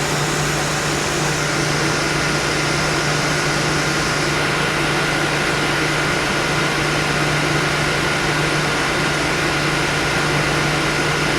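1973 Gibson 8000 BTU window air conditioner running steadily with its compressor on: a constant rush of blown air over a steady low hum.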